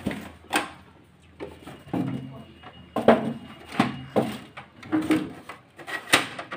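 Hard plastic clacks and knocks of a Canon printer's body and covers being handled, about ten at uneven spacing, the loudest about three seconds in and again near the end.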